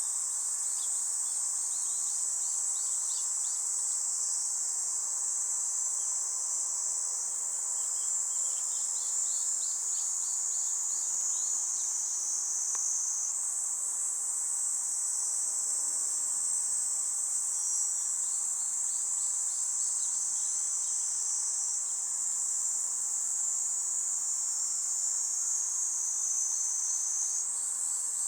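Steady, high-pitched chorus of insects chirring, with clusters of short, quick chirps every few seconds.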